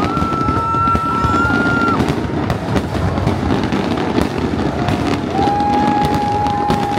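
Fireworks display banging and crackling over a continuous rumble of crowd noise. Two long steady whistles sound over it: a higher one for the first two seconds, and a lower one from about five seconds in.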